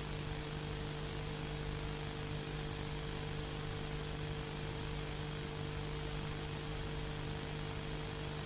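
Steady static hiss with a low, even electrical hum underneath.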